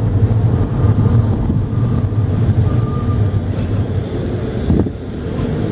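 Steady low rumble inside a VW CrossPolo cabin at low speed: its diesel engine running, with tyre noise from the road, and a short thump near the end.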